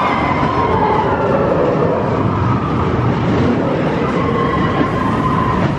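Roller coaster train running on its track through a dark tunnel: a steady loud rumble of wheels on rail, with a thin high squeal that comes in near the start and again for the last couple of seconds.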